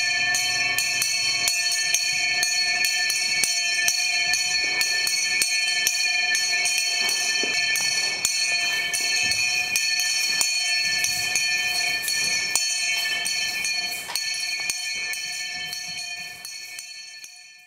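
Performance soundtrack of several steady high ringing tones held together over a dense metallic jingling. It fades out over the last couple of seconds.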